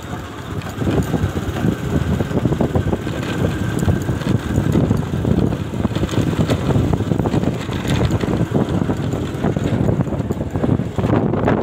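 Small single-cylinder commuter motorcycle riding along a dirt track, its engine running steadily under way. Wind buffets the phone's microphone, giving a rough, rumbling noise.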